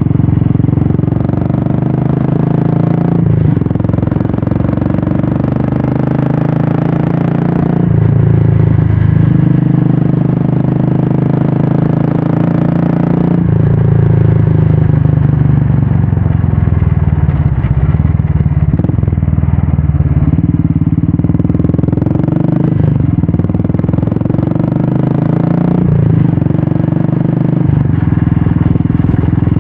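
Royal Enfield Classic 350's single-cylinder engine running through a Red Rooster stainless-steel aftermarket exhaust while the bike is ridden. The deep engine note rises and falls several times with the throttle.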